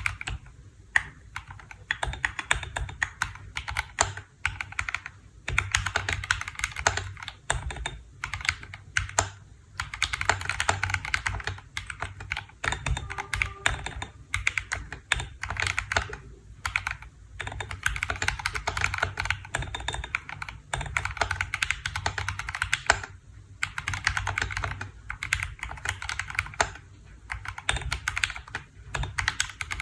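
KBDfans D65 mechanical keyboard being typed on in fast runs of keystrokes, broken by short pauses every few seconds.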